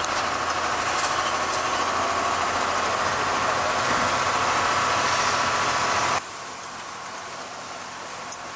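Truck engine running, heard from inside the cab while driving. About six seconds in it cuts to a quieter, lower engine sound.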